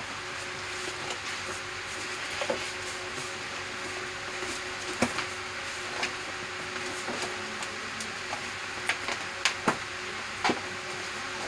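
Pages of a wallpaper sample book being handled and turned, giving scattered sharp crackles and taps over a steady hiss and faint hum; the taps come more often in the second half.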